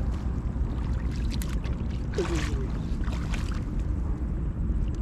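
Shallow water sloshing and splashing in a few short bursts as someone wades through it, over a steady low rumble of wind on the microphone.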